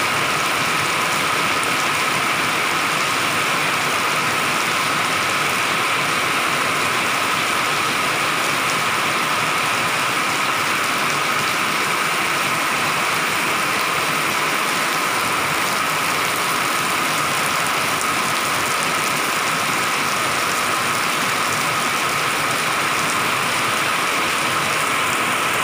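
Heavy rain pouring steadily: a dense, even hiss of drops striking pavement and hard surfaces, with runoff streaming off a roof edge.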